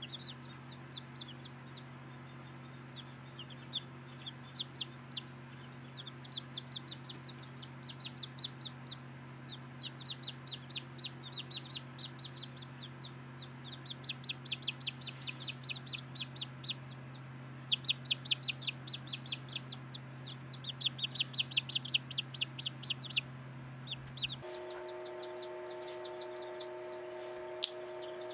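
Silkie chicks peeping: rapid runs of short, high peeps, each falling in pitch, several to a second. A steady low hum runs beneath and changes to a higher-pitched hum about 24 seconds in.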